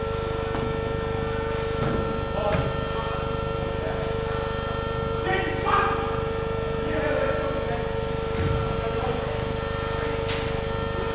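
A steady electrical hum, with a few distant shouts and calls in between. A dull thud comes about eight and a half seconds in.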